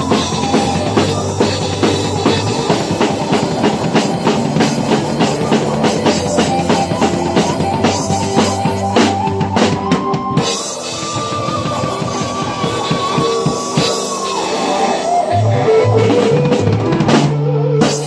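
Acoustic drum kit played to a recorded rock song: a steady beat of bass drum, snare and cymbals, thinning out to sparser hits about ten seconds in as held notes carry the song towards its close.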